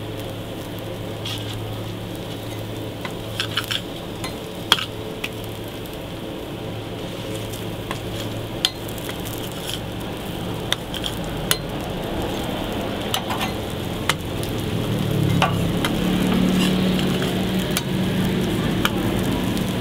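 Burger patties sizzling on a flat-top griddle, with sharp clicks and scrapes of a metal spatula against the griddle plate scattered through. A low steady hum runs underneath, and a deeper rumble swells about fifteen seconds in.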